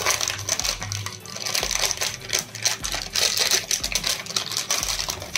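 The sealed retail packaging of a hard disk being opened by hand: a rapid run of crackling and clicking plastic and cardboard.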